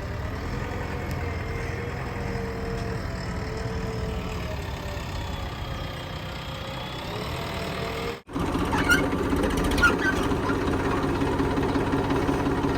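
Heavy diesel engines of a backhoe loader and a tipper truck running steadily. About two-thirds through, the sound cuts off abruptly and comes back louder, with a steady hum and a couple of sharp clanks.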